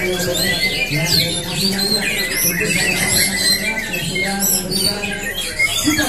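Several white-rumped shamas (murai batu) singing at once in a contest: a dense, unbroken tangle of quick whistles, chirps and squawks, with the voices of onlookers beneath.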